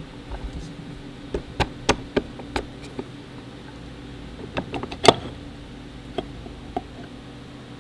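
Aluminium bracket pieces handled and set against each other on a wooden workbench: a scattered series of light clicks and knocks, the loudest about five seconds in, over a steady low hum.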